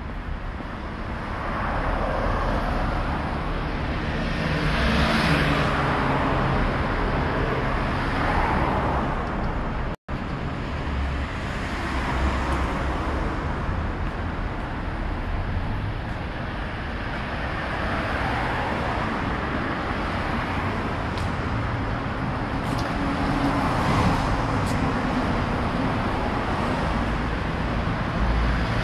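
City street traffic: cars passing one after another, heard as repeated swells of tyre and engine noise. The sound cuts out completely for an instant about a third of the way through.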